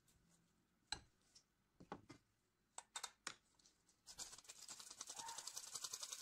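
A few light knocks, then from about four seconds in a hand-operated stainless steel flour sifter worked over a glass bowl, its mechanism giving a rapid, even clicking rattle with a soft hiss of flour.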